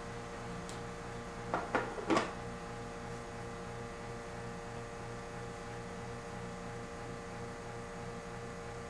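Faema two-group espresso machine's pump running with a steady hum while shots are being pulled. A few short knocks come about one and a half to two seconds in.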